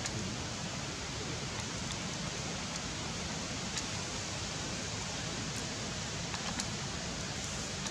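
Steady, even hiss of outdoor background noise, with a few faint brief ticks.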